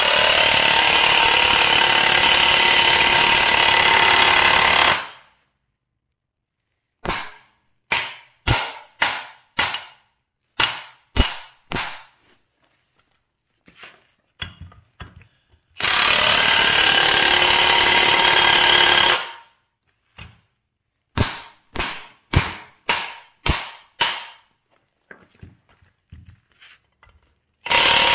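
Impact wrench driving the screw of a C-frame ball joint press, pressing a ball joint into a steering knuckle. It runs in three long loud bursts, and in between come about a dozen short, sharp bursts in two quick runs.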